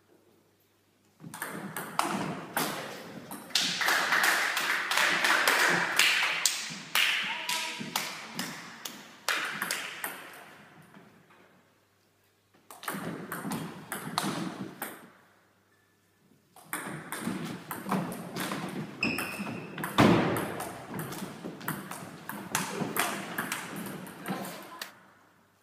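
Table tennis ball being hit back and forth: rapid sharp clicks of the ball off rackets and table. The clicks come in three long runs with short pauses between points.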